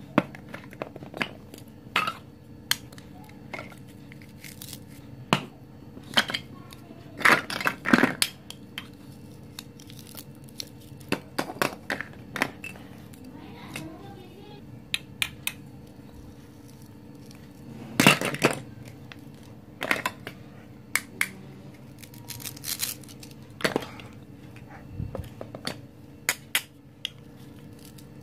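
Hollow plastic toy fruit and vegetable pieces clicking and knocking against each other and the table as they are picked up and handled, in irregular taps. A few longer scraping clusters stand out, the loudest about eight and eighteen seconds in.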